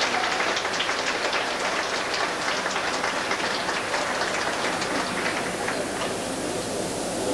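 Audience applauding, a dense patter of clapping that thins out after about five seconds.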